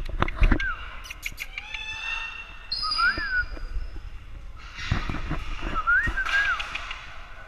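Parrot calling: a few sharp clicks, a held high whistle, and two short whistles that rise and fall, with a rasping squawk about five seconds in.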